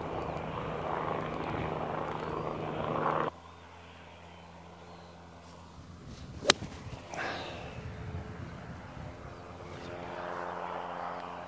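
A golf club strikes the ball once, a single sharp click about six and a half seconds in, on a pitch shot of about 100 yards. A steady rushing drone fills the first three seconds and cuts off suddenly.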